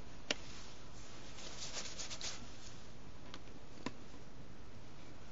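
Faint scraping and rubbing of a small hand tool against a film camera's metal top cover, with a few light clicks: one just after the start and two more later on. The scraping is most noticeable around two seconds in.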